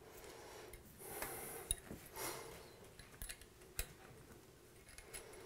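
Faint small metal clicks and scraping as an Allen key turns a set screw in the chrome flange of a Moen grab bar, with hand rustling. The key is turned backwards until the screw's thread catches with a click. Two sharper ticks come about a second and a half in and near four seconds.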